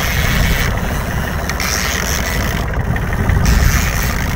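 Fishing boat's engine running steadily under way while trolling, a loud low rumble mixed with wind and water noise.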